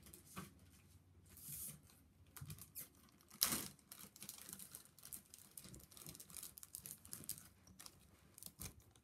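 Handling noises as hands work a small object: scattered clicks and short rustles, the loudest about three and a half seconds in.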